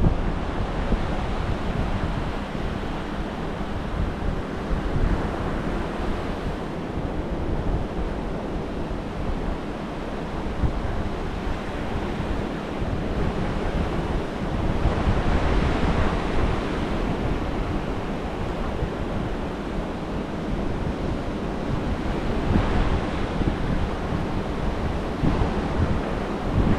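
Surf breaking offshore and washing up a sandy beach, a steady rushing that surges louder every several seconds, strongest about sixteen seconds in. Wind buffets the microphone with a low rumble throughout.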